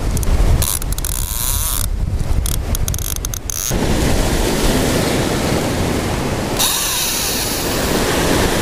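Strong wind buffeting the microphone, with surf breaking and washing over the rocky shoreline. The wind rumble dominates for the first few seconds, then the surf's hiss becomes fuller, swelling again near the end.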